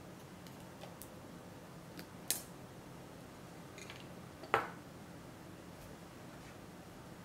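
A few sharp clicks and taps of a metal palette knife against a marble tile as a wax seal is pried off it, the loudest about four and a half seconds in.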